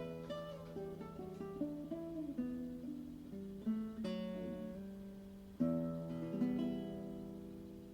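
Acoustic guitar playing slowly: single picked notes ring on over a sustained chord, and a new chord is struck about five and a half seconds in, then gradually fades.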